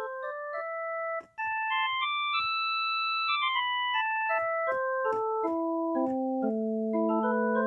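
Kurzweil K2000 synthesizer playing a dry factory keyboard program with no effects. It plays a run of sustained notes that climbs to a high held note, steps back down, and ends on a low held chord, each note starting with a sharp click.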